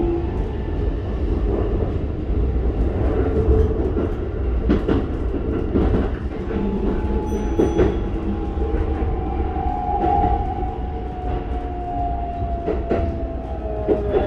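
Keikyu 1000 series train with a Toyo IGBT-VVVF inverter, heard from inside the car: a steady running rumble with a few sharp knocks from the track. From about halfway, the inverter and traction-motor whine falls slowly in pitch as the train brakes into a station.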